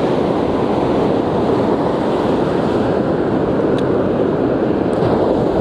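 Steady surf breaking on a sandy beach, with wind buffeting the microphone.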